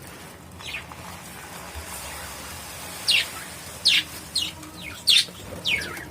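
Budgerigars chirping: a string of short, sharp chirps, each falling in pitch. They come one after another from about three seconds in.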